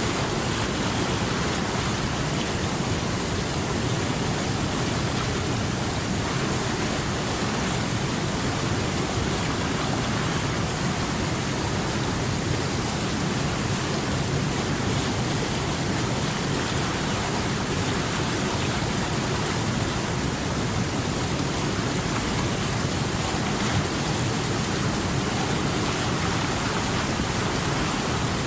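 Water rushing steadily over rocks, an unbroken full hiss of a fast-flowing stream or cascade.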